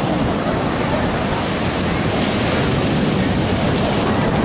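Sea surf breaking on a sandy beach: a steady, loud rush of waves, with wind buffeting the microphone.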